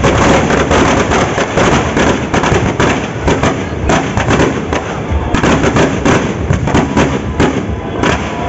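Firecrackers inside a burning effigy going off in a rapid, unbroken string of sharp cracks and bangs.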